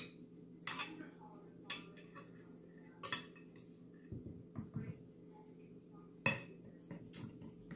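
Metal fork and knife clinking and scraping against a ceramic plate while cutting a baked salmon fillet: scattered sharp clinks, the loudest about six seconds in, with a few dull knocks in between, over a steady low hum.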